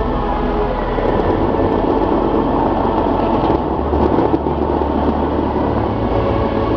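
The Dubai Fountain's water jets rushing steadily, with the show's music playing over the water.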